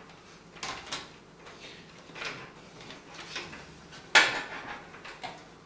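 Computer cables being handled and routed inside a PC case: scattered rustles and light plastic clacks, with one sharp knock about four seconds in.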